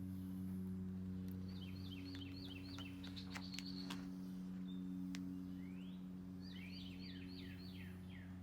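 Faint steady low hum, with a bird chirping in two runs of quick repeated chirps, about a second in and again near the end, and a few light clicks in the middle.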